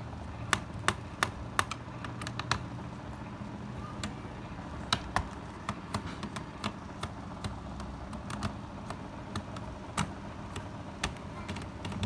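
Screwdriver clicking and tapping against small screws and the plastic underside of a laptop while the hard-drive bay cover's two screws are undone: a string of irregular sharp clicks, a quick run of four in the first two seconds and a cluster around five seconds in.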